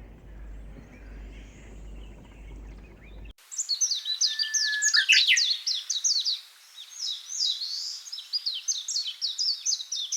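Low outdoor background noise. A little over three seconds in, it cuts abruptly to loud, rapid bird chirping: many quick downward-sweeping high chirps a second, with a brief gap about three seconds later.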